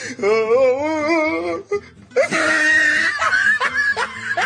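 Music: a wavering melodic line with heavy vibrato for about a second and a half. After a brief dip, a fuller, brighter passage starts with laughter over it.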